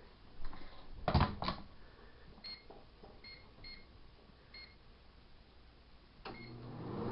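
GE microwave oven being started: two knocks, then five short keypad beeps over a few seconds. With the last beep, near the end, the oven starts running with a steady hum.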